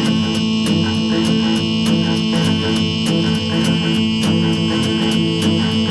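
Instrumental music: guitars playing over a steady beat, with no singing.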